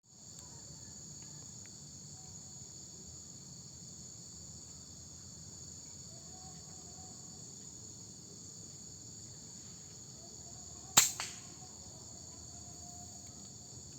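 A single loud shot from a QYS air rifle about eleven seconds in, with a smaller crack a moment after it, over a steady chorus of crickets and insects.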